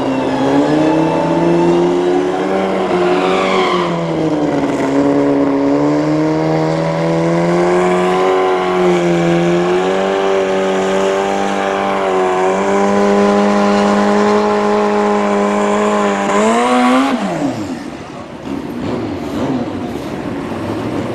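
Suzuki Hayabusa drag bike's inline-four engine held at high, steady revs on the start line, with small rises and dips. Late on it revs up sharply as the bike launches, then its pitch falls away as it pulls off down the strip.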